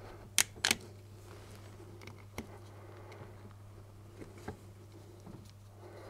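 Two sharp metallic clicks about half a second in, then a few faint ticks, as a steel ear clamp on a purge-valve hose is prised off its retaining nodule and unwrapped by hand. A low steady hum runs underneath.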